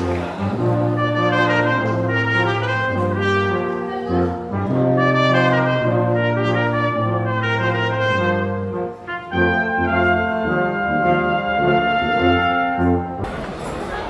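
Brass quintet of two trumpets, French horn, trombone and tuba playing a slow piece in held chords over a moving tuba bass line. The music cuts off near the end, giving way to the noise of a busy room.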